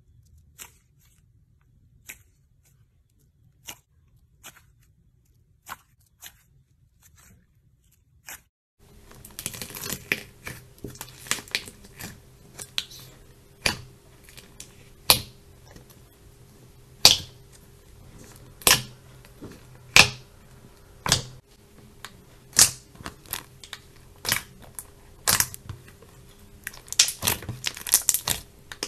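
Slime being squeezed and mixed by hand, giving irregular sharp sticky pops and crackles. The pops are sparse over quiet for about the first nine seconds, then come denser and louder over a faint steady hum.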